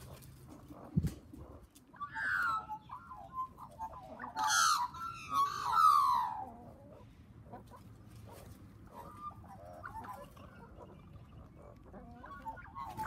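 Hens and Australian magpies calling: a call about two seconds in, then a louder run of calls from about four to six and a half seconds, some gliding downward, followed by softer warbling. A brief low bump about a second in.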